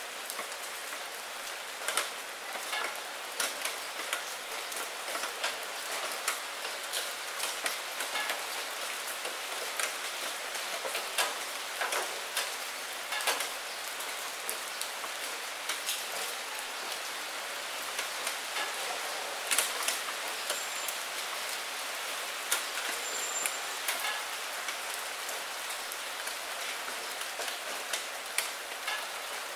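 Steady rain falling on wet fallen maple leaves and puddle water: an even hiss with frequent, irregular close drop hits standing out from it.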